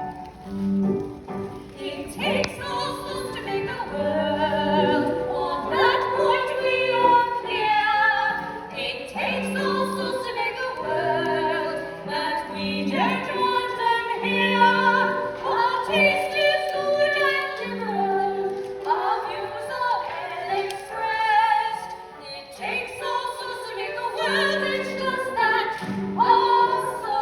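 Voices singing a musical-theatre song over instrumental accompaniment.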